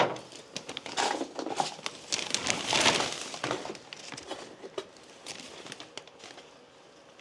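Crinkling and rustling of loose trash being handled and sorted by hand, in clusters over the first few seconds, then fading to light handling.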